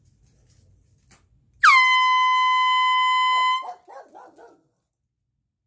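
Handheld canned air horn sounding one steady blast of about two seconds. It starts about a second and a half in with a quick slide down in pitch before settling on a single high tone.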